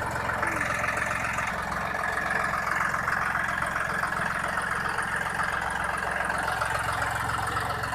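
John Deere tractor's diesel engine idling steadily, with a busy mechanical clatter over its low hum.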